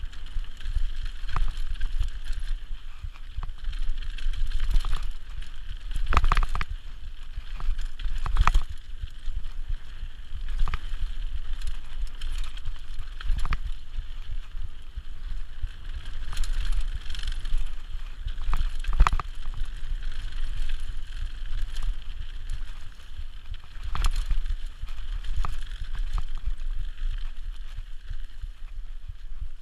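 Mountain bike descending a dirt singletrack at speed: a steady low rush of wind on the microphone and tyres on the dirt, with the bike rattling and several sharp knocks over bumps, the loudest about six and eight seconds in.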